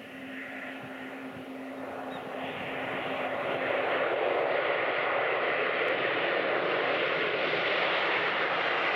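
Boeing 737-800's CFM56 turbofan engines on the landing roll just after touchdown. The noise grows louder over the first few seconds as the jet rolls closer, then holds steady.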